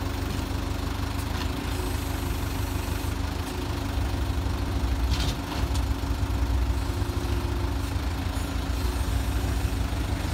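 Truck engine idling steadily, a constant low hum that runs a little louder through the middle, with a few faint clicks about halfway through.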